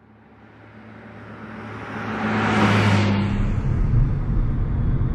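A whoosh that swells and dies away over a steady low hum, fading in. From about three seconds in, the low rumble of a car driving, heard from inside the cabin.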